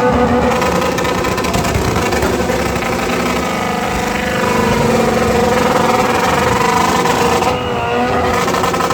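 Motorcycle engine held at high revs during a stunt, its pitch wavering up and down, easing off briefly near the end.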